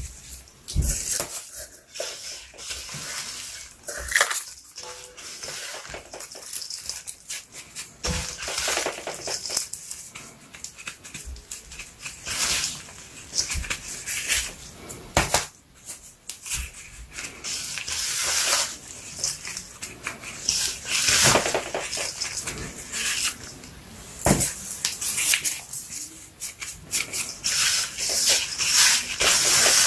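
Damp baking-soda bath bomb mixture being scooped and packed into cut-down paper cups in a stainless steel bowl: crunchy, gritty scraping of the powder, with a few sharp knocks of the cup and hands against the metal bowl.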